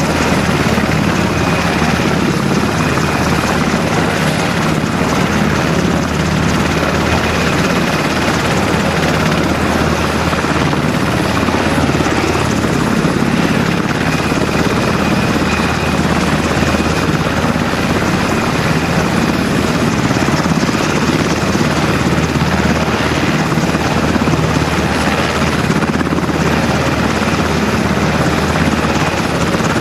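UH-60 Black Hawk helicopter running on the ground with its rotors turning: a steady, loud rotor noise under a constant high whine from its twin turboshaft engines.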